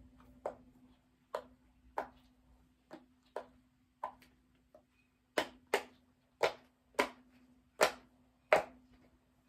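Butterfly-shaped dimple fidget toy being pressed, its bubbles snapping through one at a time as a series of about a dozen sharp clicks at an uneven pace, louder from about halfway through. A faint steady hum runs underneath.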